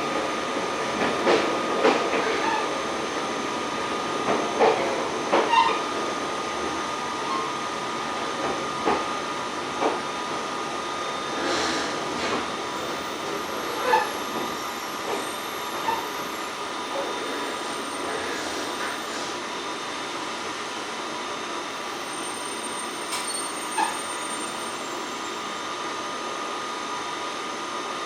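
JR Shikoku 8000 series electric express train running in to stop, heard from on board: steady running noise with a faint high tone, and scattered clicks and brief squeals from wheels and brakes.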